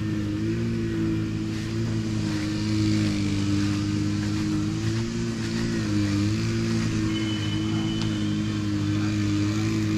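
A vehicle engine running at a steady speed, an even low hum whose pitch wavers only slightly.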